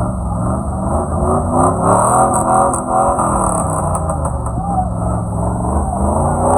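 A four-wheel-drive vehicle's engine revving, its pitch rising and falling repeatedly over a steady low rumble, with voices heard over it.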